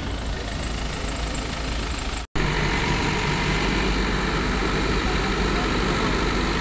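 Diesel engine of an Escorts F15 mobile crane idling steadily, with a low hum. It breaks off in a brief silence a little over two seconds in and comes back slightly louder.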